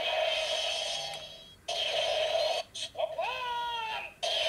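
Electronic sound effects from a battery-powered Kyoryuger toy weapon's small speaker. A buzzy, sustained effect tone cuts out about one and a half seconds in and starts again. Near three seconds there is a pitched cry that sweeps up and then slides down, before the tone returns.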